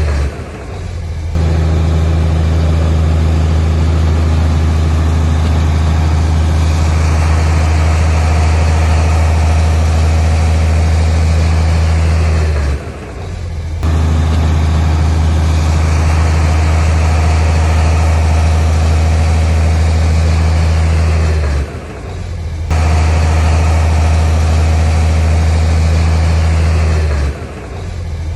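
Heavy diesel engine of an earthmoving machine running steadily at an unchanging pitch, with a deep low hum. The sound drops out briefly four times, each time for about a second.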